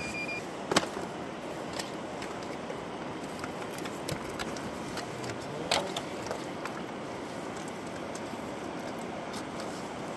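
Steady rush of shallow river water, with a short electronic beep right at the start from the handheld fish-tag scanner. A few sharp clicks and knocks stand out, the loudest just under a second in and another near six seconds.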